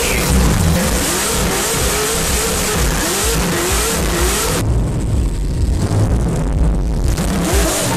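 LSX V8-swapped BMW M4 drift car engine, naturally aspirated, heard from inside the cabin. Its revs rise and fall over and over as the throttle is worked through a drift, and the sound briefly thins out about five seconds in.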